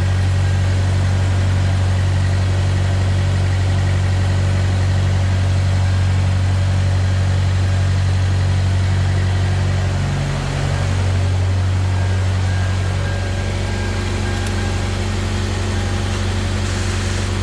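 An engine idling steadily, its low hum unbroken, with a brief dip and change in its note about ten seconds in.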